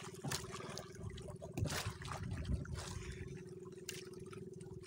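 Sea water splashing and sloshing around an outrigger canoe as a man in the water moves along its bamboo boom, over a faint steady hum.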